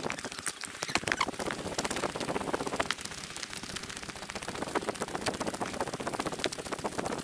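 Sped-up walking audio: a dense, rapid, irregular crackle of footsteps and rustling on a dirt path over a steady hiss.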